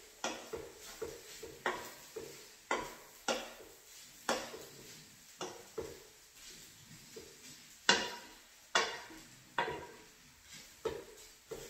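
Wooden spoon stirring noodles and vegetables in a large frying pan, knocking and scraping against the pan about once a second, the two loudest knocks about eight seconds in, over a faint sizzle from the still-hot pan.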